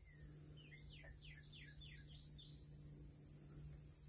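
Faint outdoor evening ambience: insects trilling steadily at a high pitch over a faint low hum. About half a second in, a bird sings a quick series of about six falling whistled notes.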